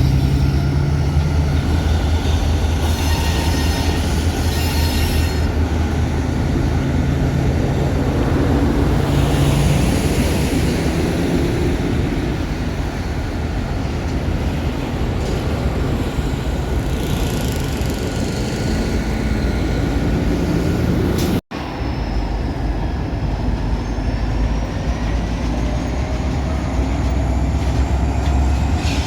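Union Pacific freight train passing: the diesel locomotives running with a steady low drone under the rolling of the cars, and a thin steady whine from the wheels above it. The sound drops out for an instant about two-thirds of the way through.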